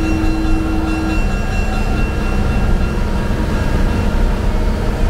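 Vintage rail motor car running along the track, heard from inside the cab: a loud, steady low rumble of motor and wheels. A steady whine stops about a second in.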